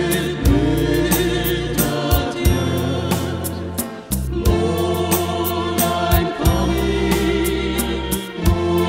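A gospel hymn sung by a choir over sustained bass notes, with a regular beat about every two seconds.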